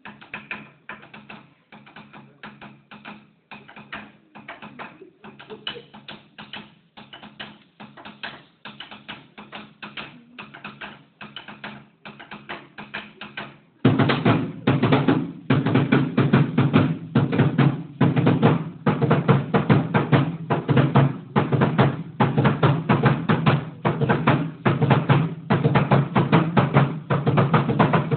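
Ceremonial dance drumming: a drum struck in a fast, steady beat, getting much louder about halfway through.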